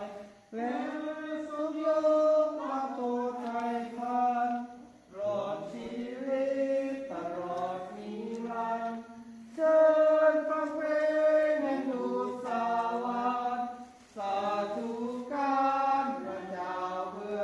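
A small group of people singing a Christmas carol together, unaccompanied, in sung phrases with brief pauses for breath between them.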